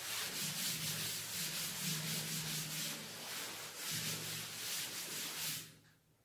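Duster rubbed in quick back-and-forth strokes across a chalkboard, wiping off chalk writing. The scrubbing stops shortly before the end.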